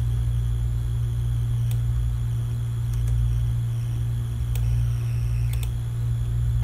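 Steady low electrical hum, with a few faint mouse clicks.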